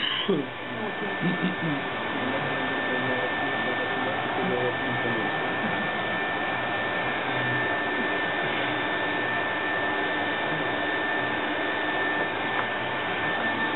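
Electric heat gun blowing hot air continuously, a steady rushing with a thin high whine from its fan motor, as it heats a spool of optical fibre.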